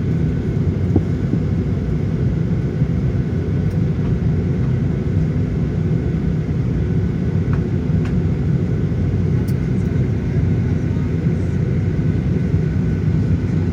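Steady low rumble and hum inside the cabin of a Boeing 737-900ER parked at the gate, from its air-conditioning and ventilation running, with a faint steady whine above it.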